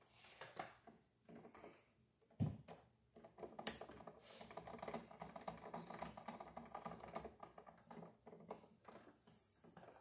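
Pliers and copper wire clicking and rattling against a wall switch as the wire is bent into a loop around its terminal screw: faint, rapid little clicks, thickest in the middle, with a dull knock about two and a half seconds in.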